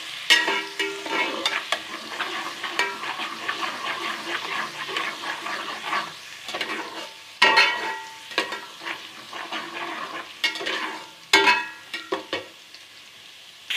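Garlic sizzling in hot ghee as a spoon stirs and scrapes the pot, with many small scraping clicks. Two louder ringing knocks come about halfway through and again a little later.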